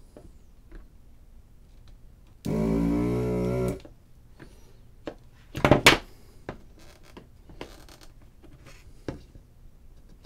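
Handheld desoldering gun's vacuum pump buzzing steadily for just over a second, starting about two and a half seconds in, as it sucks solder off an encoder pin. A few sharp cracks and clicks follow about six seconds in as the small circuit board is pried loose, then scattered faint clicks.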